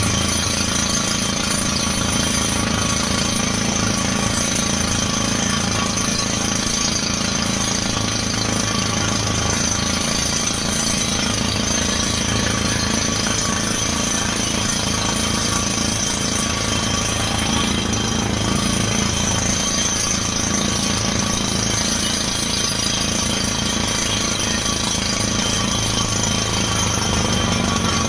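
Truck-mounted down-the-hole water well drilling rig running: the air-driven drill hammer pounding rapidly and steadily over the drone of the engine and air compressor.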